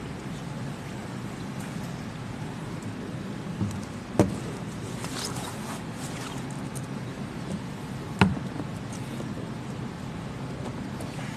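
Steady low room hum with faint rustling and two sharp knocks about four seconds apart, from a person moving about a leather armchair beside a stand-mounted microphone and settling into it.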